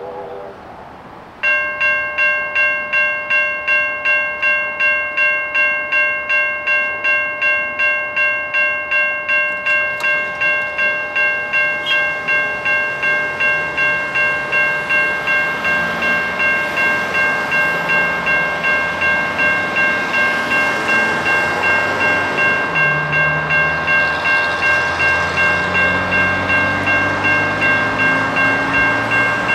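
Safetran Type 3 electronic level-crossing bells start ringing about a second and a half in, a steady ding of about two strikes a second, signalling that a train is approaching. In the second half the noise of an approaching train grows underneath the bells.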